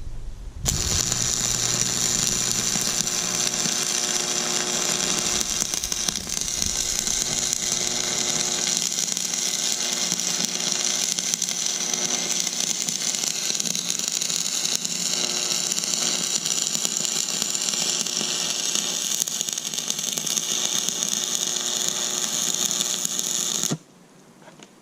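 Stick-welding arc crackling and hissing steadily while a weld bead is run along a steel joint. It strikes about half a second in, runs unbroken for over twenty seconds, and cuts off suddenly near the end when the arc is broken.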